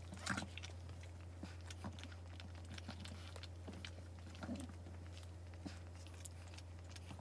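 Faint wet licking and chewing sounds from a Boston Terrier mother cleaning up after giving birth, short irregular smacks and clicks over a steady low hum.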